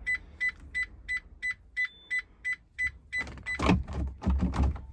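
Reversing warning beeper on a Peugeot Boxer van sounding steady high-pitched beeps about three times a second while the van is in reverse gear. The beeps stop about three and a half seconds in, among a few loud knocks and thumps.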